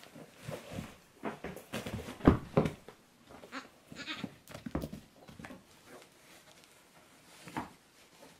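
A baby goat scrambling on a cushion and floor mats: irregular knocks and scuffles of its hooves and body, with two sharp thumps, the loudest, a little over two seconds in.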